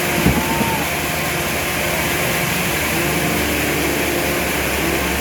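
Sawmill machinery running with a steady noise, with a single short knock about a third of a second in.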